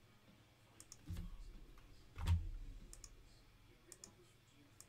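Computer mouse button clicking several times, often as quick press-and-release pairs, with a soft thump just after a second in and a louder thump a little past two seconds.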